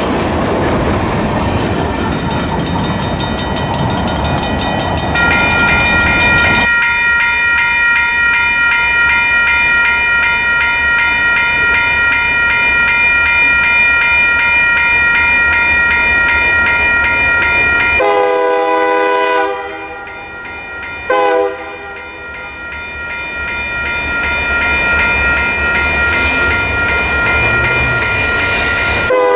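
Freight cars rolling close by with clattering wheels. After about six seconds this gives way to a Union Pacific SD70M locomotive's horn sounding as the train approaches: one long held blast, then shorter blasts in a lower chord, including a brief toot, with another blast starting near the end.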